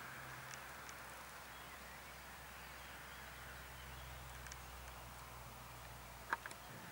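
Faint open-air ambience under a storm sky: a steady soft hiss, with one short sharp click near the end.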